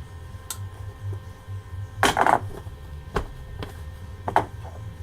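A few sharp metallic clicks and clatters from welding gear being handled, with a louder, rasping burst about half a second long two seconds in and a shorter one near the end, over a steady low hum.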